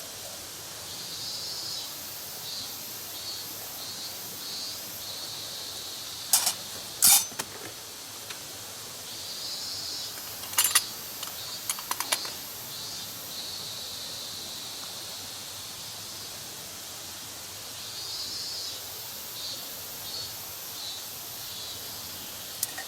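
Campfire wood popping, a few sharp snaps clustered near the middle, over a steady hiss with high chirping that pulses on and off.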